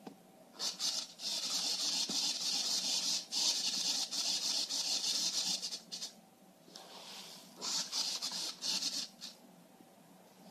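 Arduino PID ball-and-beam balancer at work, making a rough scraping hiss in stretches as the beam tilts and the ball moves along its nichrome-wire track. The hiss runs for several seconds, stops around the middle, and comes back in short choppy bursts near the end.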